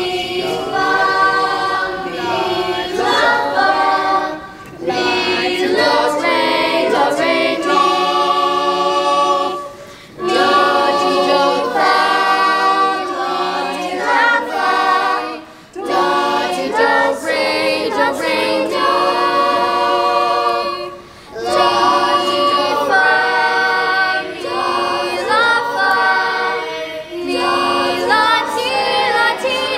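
A group of voices singing unaccompanied, a theatre cast's vocal warm-up exercise, in repeated phrases of about five seconds with short breaks between them.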